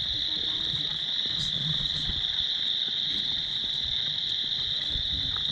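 A chorus of spring peepers: many small frogs calling at once, blending into a loud, steady high-pitched shrill.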